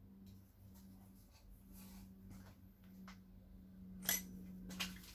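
A few short, light clicks and knocks of parts and tools being handled during engine assembly, the loudest just after four seconds, over a steady low hum.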